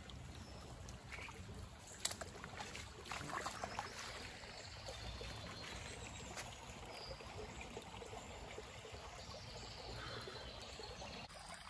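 Shallow creek water trickling faintly, with a few light clicks and knocks.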